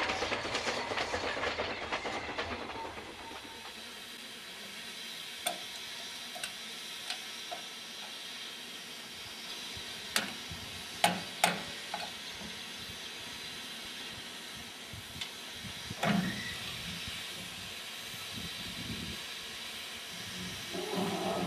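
A narrow-gauge train rumbles past for the first few seconds and fades. Then a standing 762 mm C2 class 0-8-0 steam locomotive hisses steadily, with a few sharp metallic clanks.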